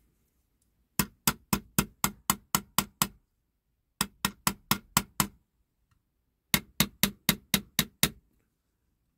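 Small hammer striking a punch to tap down the rivets on a diecast toy's metal baseplate: three runs of quick, light metallic taps, about four a second, with short pauses between.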